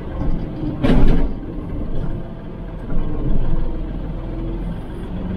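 Kubota L3560 tractor's diesel engine running steadily, with a brief loud hissing burst about a second in.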